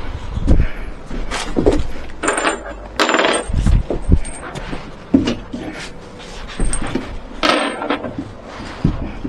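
Irregular clinks and knocks of small hard objects being handled, with a couple of longer rustling bursts.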